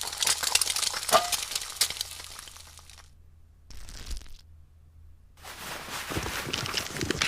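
Crackling sizzle of eggs frying in a pan, a dense run of fine pops that fades and stops about three seconds in, then starts up again with a few duller knocks near the end.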